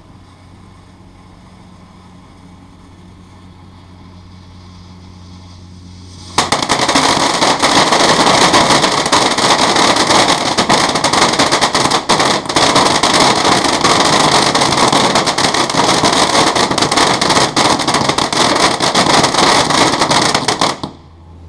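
Firecrackers going off in a long, dense, rapid string inside a concrete bunker, starting suddenly about six seconds in and cutting off abruptly near the end, after about fourteen seconds. A faint low hum is all that comes before it.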